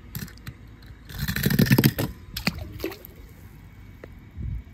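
A die-cast toy car clicks on a ramp of wooden craft sticks, then splashes loudly into pool water about a second in. Water sloshes and a few more clicks follow.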